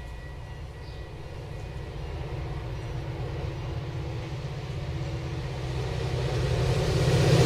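Train approaching: a low rumble that grows steadily louder, building most in the last couple of seconds.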